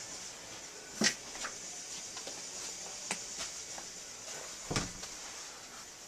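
A few scattered knocks against a steady hiss, the sharpest about a second in, with a duller thump near the end.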